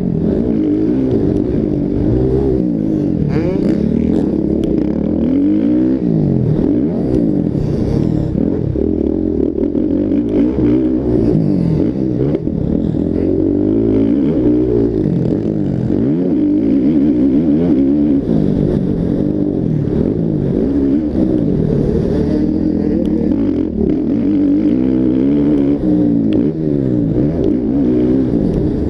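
Several motocross bikes racing, their engines revving up and falling back again and again as they accelerate and shift, with many overlapping rising and falling engine notes.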